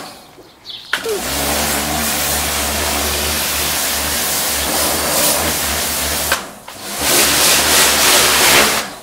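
Kärcher electric pressure washer running, its motor and pump humming steadily under the hiss of the spray jet. It starts about a second in, cuts out about six seconds in, starts again a moment later and stops near the end, as the spray gun's trigger is squeezed and released.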